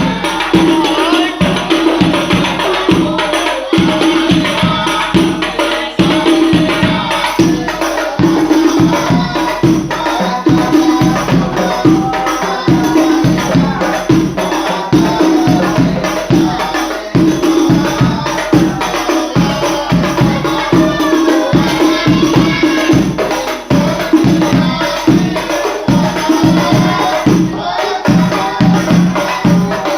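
Sholawat devotional singing by a group, accompanied by frame drums (rebana) beating a fast, dense, steady rhythm.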